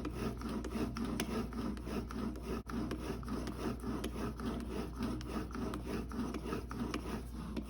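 Steel broadhead blade's bevel drawn repeatedly across cardboard charged with polishing compound: steady rubbing strokes with small ticks, backward strokes only, stropping the edge to a polish.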